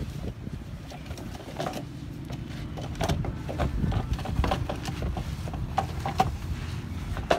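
Bamboo pole knocking and creaking against a wooden bending jig as it is levered to straighten it, with irregular sharp knocks and a few short squeaks over a low steady rumble.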